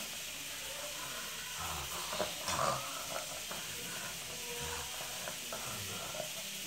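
Steady hiss, with faint soft breathing and rustling now and then.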